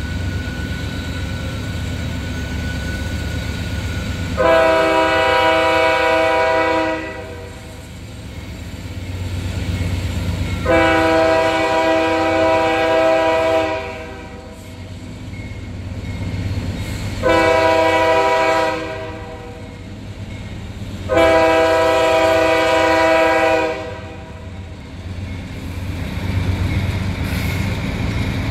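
Norfolk Southern freight locomotive's multi-chime air horn sounding four blasts, long, long, short, long: the standard grade-crossing signal. Under it runs the train's low rumble, growing near the end as the locomotives come closer.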